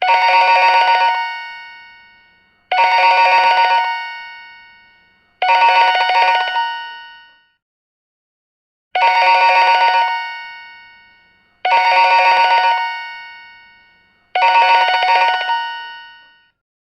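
Cheap plastic telephone ringing six times, in two sets of three with a longer pause between the sets. Each ring is a rapid trill about a second long that dies away.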